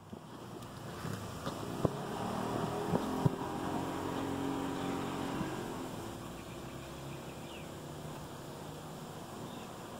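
A steady low drone like a distant engine over outdoor background noise, with a few faint clicks in the first few seconds; it eases off slightly about halfway through.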